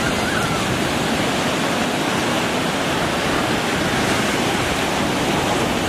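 Surf breaking and washing up a sandy beach: a steady rush of foaming water.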